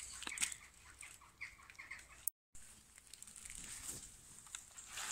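Wet clay daub being scooped from a bucket and pressed and smoothed by hand onto a woven willow wattle panel: soft squelching and handling noises, with a few short high bird calls about a second and a half in. The sound drops out completely for a moment just after two seconds.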